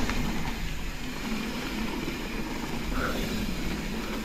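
Mountain bike rolling fast down a dirt singletrack, heard from the rider's own bike: a steady rumble of tyres on packed dirt mixed with wind noise.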